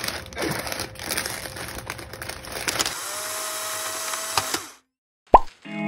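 Plastic instant-noodle packets crinkling as they are handled, giving a stream of sharp crackles. A steadier hiss with a faint held tone follows and cuts off about four and a half seconds in, then a single sharp pop comes just before the end.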